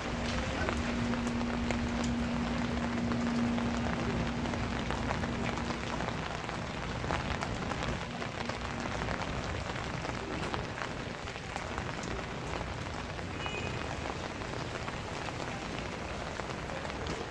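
Autumn rain falling steadily, with many small drop ticks on surfaces. A low steady hum sounds over the first six seconds or so and then fades.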